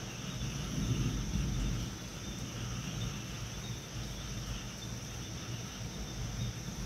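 Distant thunder rumbling low, swelling about a second in and building again near the end, over a steady high chirring of night insects.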